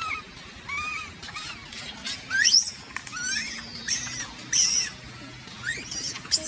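Baby macaque crying in distress: a rapid run of short, high squeaks and chirps, some sweeping sharply upward, as it is held down by its mother and kept from nursing.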